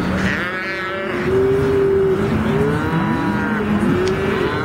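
Cattle bawling, several calls overlapping one after another without a break, as calves are roped and dragged to the branding crew.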